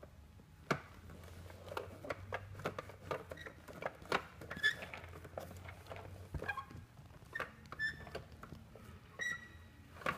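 Small hands tapping and handling a plastic toy: irregular light clicks and knocks, with a few brief high-pitched chirps around the middle and near the end.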